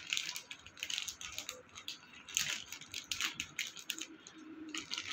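Thin plastic bread bag crinkling in irregular crackles as it is opened by hand and a soft bun is pulled out of it.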